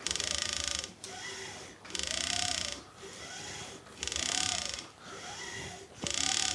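EasyRig Minimax support line paying out and drawing back in as a camera rig is pulled up and down. It makes an even, repeating zipping whir about once a second, alternating a louder hissing stroke with a softer one whose tone rises and falls. The sound is consistent from stroke to stroke, a sign that the line runs smoothly.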